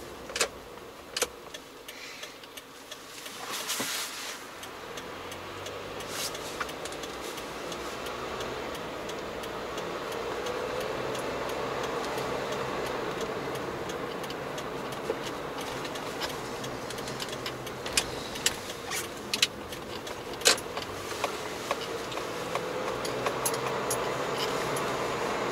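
Car interior while driving: steady engine and road noise that grows louder about a third of the way through as the car gathers speed, with scattered sharp clicks and rattles.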